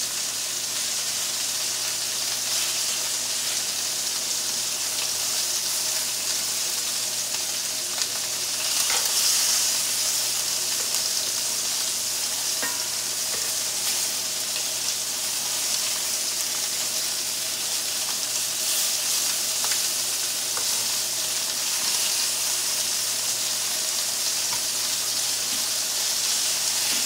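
Filet mignon steaks and lamb chops sizzling in hot skillets: a steady frying hiss that swells briefly about nine seconds in, with a few faint clicks.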